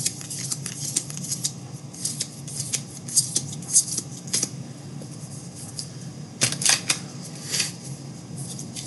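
2018 Bowman Draft baseball cards being flipped and slid against one another in the hands: an uneven run of light, crisp flicks and swishes, with a short lull about five seconds in.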